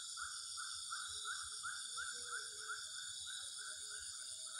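Evening chorus of insects: a steady high-pitched buzz, with a short rising chirp repeated about three times a second.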